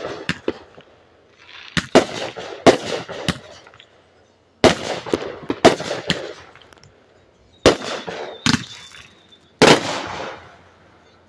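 Aerial fireworks bursting overhead: sharp bangs, each trailing off into crackling, in clusters every couple of seconds, with the last loud burst near the end.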